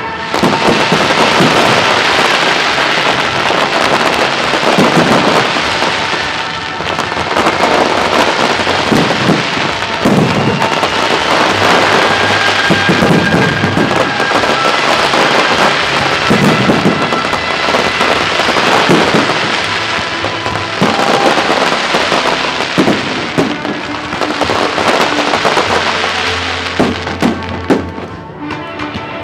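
Display fireworks going off in a dense, continuous barrage of bangs and crackling, with a few separate sharp bangs near the end. Music plays underneath.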